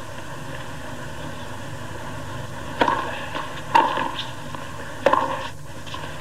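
Tennis ball struck by rackets in a rally: four sharp hits about a second apart, starting about three seconds in, over a steady background hum.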